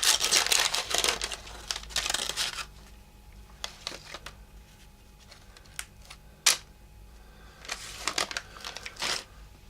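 Wax paper wrapper of a 1984 Topps baseball card pack crinkling and tearing open, loud for the first couple of seconds. After that come scattered light clicks and rustles, one sharper snap midway and a short cluster near the end.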